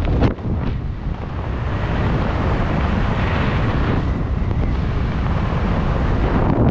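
Wind buffeting the camera's microphone during descent under an open parachute: a steady, low-heavy rush with a brief louder gust near the start.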